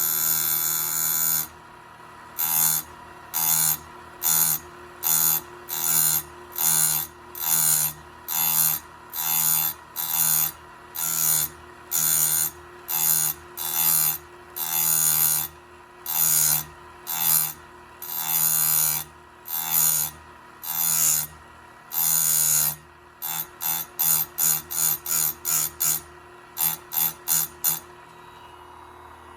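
Harbor Freight electric chainsaw-chain grinder running with a steady whine while its grinding wheel is touched to a chain tooth again and again in short grinding bursts, about one a second. The bursts quicken to about two a second near the end, then stop. This is the wheel cleaning up the tooth's side plate and gullet.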